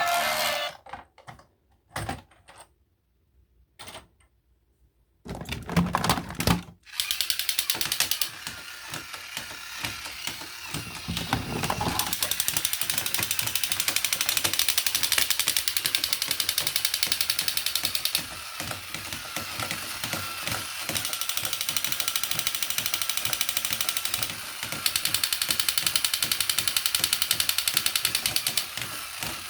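Rapid, even mechanical clicking from a small mechanism, like ratcheting gears. It starts about seven seconds in after a few scattered clicks, dips a little around eighteen seconds and gets louder again near twenty-five seconds.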